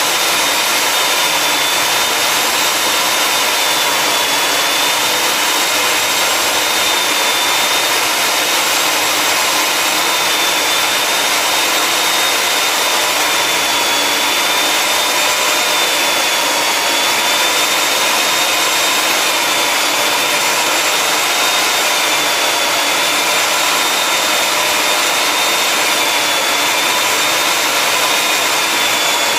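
Electric diamond core drill on a rig stand, its motor running steadily with a high whine that wavers slightly in pitch as the water-fed core bit cuts into a tiled floor.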